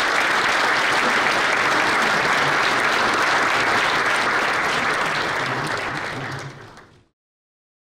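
Large audience applauding steadily, fading out and stopping near the end.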